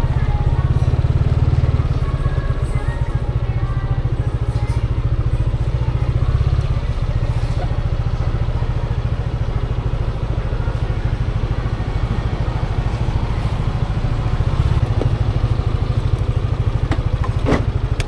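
Yamaha motor scooter's single-cylinder engine running at low speed and then idling as the scooter rolls to a stop. A sharp click comes near the end, and the engine sound drops away abruptly right at the close.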